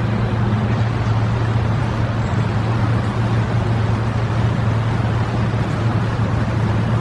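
A steady low mechanical hum over a constant noisy rumble, unchanging throughout.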